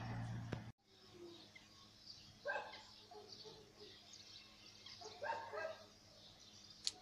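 Two short animal calls, about three seconds apart, over a faint outdoor background, with a sharp click just before the end.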